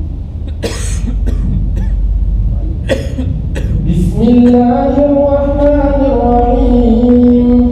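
A couple of coughs from the congregation, under a steady low hum. Then, about four seconds in, a man begins chanting Quran recitation in long, held melodic notes.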